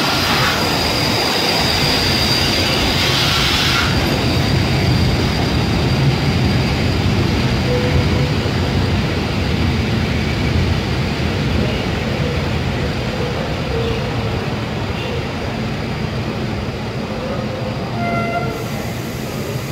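Train of vintage passenger coaches hauled by a steam locomotive rolling past slowly as it arrives at its terminus, the wheels rumbling on the rails. A steady high squeal and a hiss are heard for about the first four seconds.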